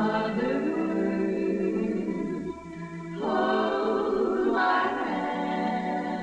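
A female vocal quartet singing together in harmony, holding long notes. A short break comes about two and a half seconds in, and then a new chord starts.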